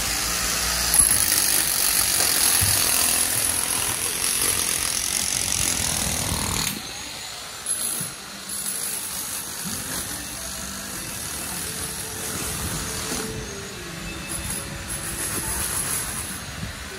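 City street ambience with traffic noise, which drops away abruptly about seven seconds in to a quieter background with a steady high-pitched hiss.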